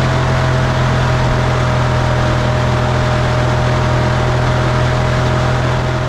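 Forestry mulcher rotor drum spinning at speed, driven by the skid loader's hydraulics: a loud, steady whir with a thin, steady whine above it and the loader's engine running underneath.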